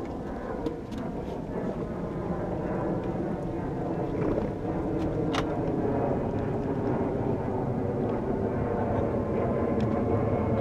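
A boat engine running steadily, slowly growing louder, with a couple of sharp clicks about a second in and near the middle.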